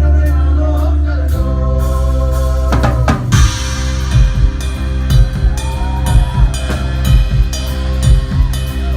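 Live rock band playing: a sung line over a held bass note trails off, then the drum kit comes in about three seconds in with a steady beat of kick drum and snare.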